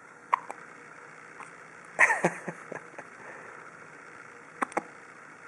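Baby hiccuping: short, sharp hics about two seconds apart, the one in the middle the loudest, with a brief falling squeak of voice.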